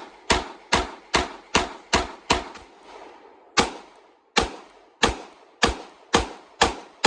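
Glock 30S .45 ACP pistol firing a string of shots, each a sharp report with a short echoing tail. About seven come quickly, roughly two and a half a second; after a pause of about a second, about seven more follow at a slightly slower pace.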